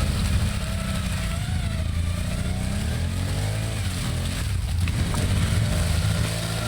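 ATV engine running under way, its pitch rising and falling as the throttle is worked.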